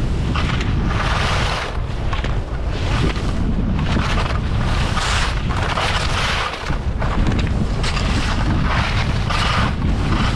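Wind buffeting the microphone of a camera skiing fast downhill, a constant low rumble. Over it, a scraping hiss of skis carving on groomed glacier snow swells and fades about once a second, following the turns.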